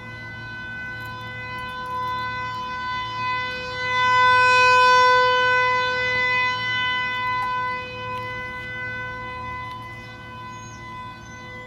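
Outdoor tornado warning siren sounding one steady, unwavering tone at full speed. It swells louder about four seconds in and eases off again after about eight seconds.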